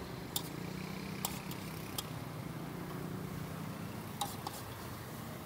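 Street food stall ambience: a steady low hum with a handful of sharp clicks and taps, about five in all, spread across a few seconds.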